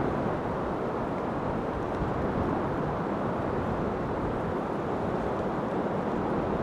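Steady rushing noise of strong wind, even and unbroken.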